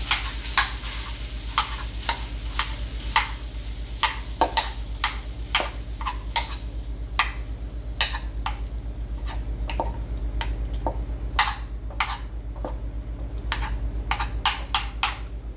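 Hamburger meat cooking in a skillet: irregular sharp pops and clicks, a few a second, over a steady low hum.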